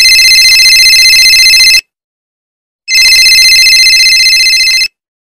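Telephone ringing: two rings of about two seconds each, about a second apart.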